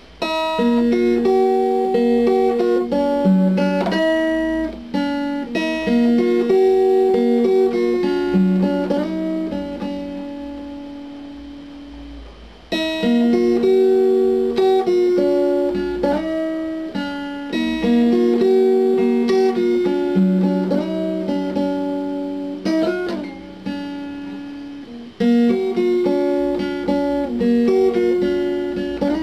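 Instrumental guitar music: a guitar picking melody notes over chords, with no singing. The phrases start afresh about twelve seconds in and again near the end.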